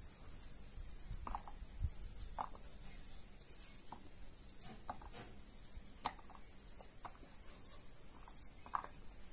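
Kitchen knife peeling and cutting butternut squash over a ceramic bowl: short, irregular scrapes and cuts, about one a second.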